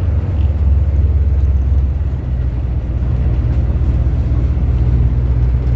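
Steady, loud, low engine drone of a large vehicle, with a wash of noise over it.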